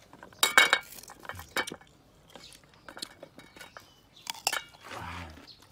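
Crisp crunching and chewing of unripe green ambarella fruit, heard as sharp cracks and crackles. The loudest crackle comes about half a second in, and another cluster about four and a half seconds in. A short low voice sound, like a hum, comes near the end.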